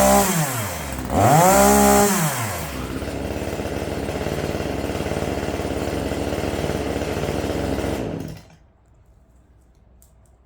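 Small two-stroke gas chainsaw revved up and let back down twice, then running steadily at a lower speed until the engine is switched off about eight seconds in.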